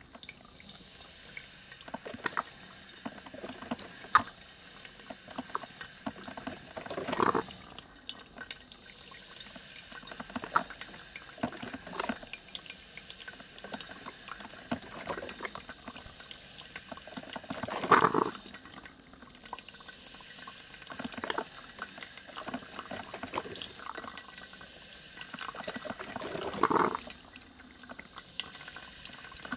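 Coffee machine brewing: water gurgling and spurting in irregular bursts, with louder surges about every ten seconds.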